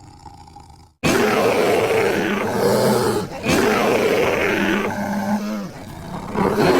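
Marsican brown bear giving a series of loud, rough calls that start abruptly about a second in, broken by short pauses, with a brief steadier low note partway through.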